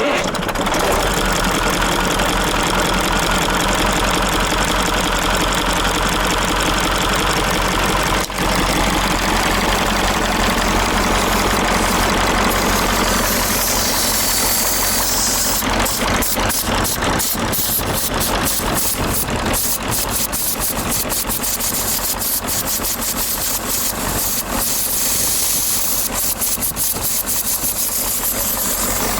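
KamAZ truck's diesel engine idling steadily. From about 13 seconds in, a hiss joins and fades in and out over the engine, with rapid ticking through the later part.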